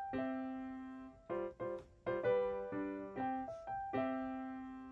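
Background music: a gentle piano tune. Held notes ring out and slowly fade, with short runs of quicker notes between them.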